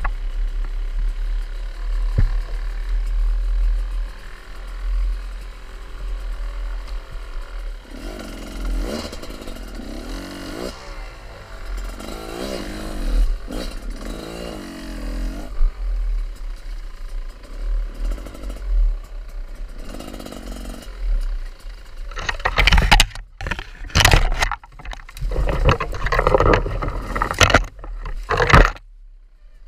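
Off-road motorcycle engine revving up and down, over a constant heavy low rumble. A series of loud, rough, sudden bursts comes over it in the last several seconds.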